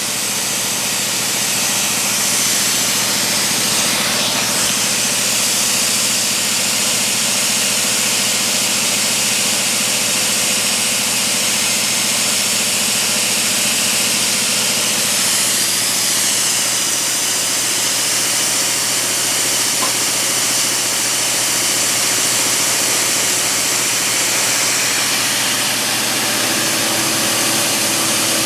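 Compressed-air blast hissing steadily over the hum of a milling machine cutting serration teeth into steel vise jaws, with the air blowing on the cut to keep it cool. The noise is extremely loud and stays level throughout.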